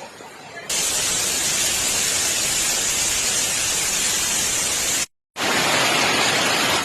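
Loud, steady rush of water, typical of flood footage. It starts abruptly about a second in, cuts out for a moment about five seconds in, then resumes.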